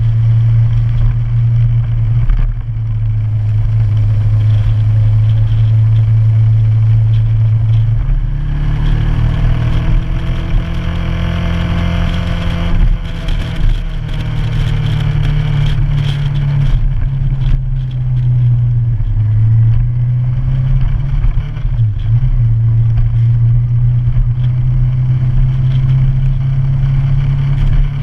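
Motorcycle engine running under way. Its pitch rises about eight seconds in, holds, then eases back down, as if the bike speeds up and then slows.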